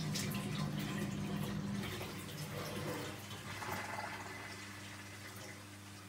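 Miele G 4203 SC dishwasher running a wash cycle: a low machine hum with water splashing and dripping inside the tub. About two seconds in, the deeper part of the hum fades and the sound grows quieter, leaving a lower steady hum.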